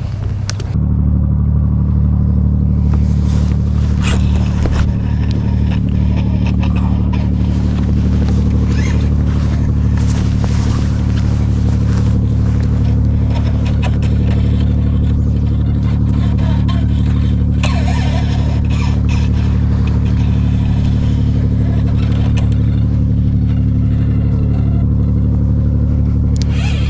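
An engine running steadily at constant speed; it shifts to a new pitch under a second in and then holds. Scattered clicks and knocks sound over it.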